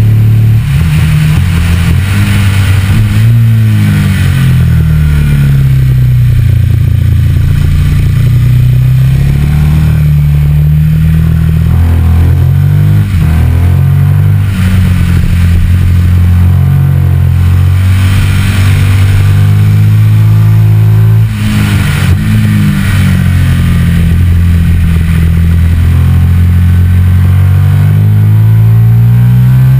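Ducati Multistrada 1200's L-twin engine pulling along the road, heard from low on the front fork. Its pitch falls and climbs again as the throttle is eased and reopened, plainly about three seconds in and again a little past twenty seconds.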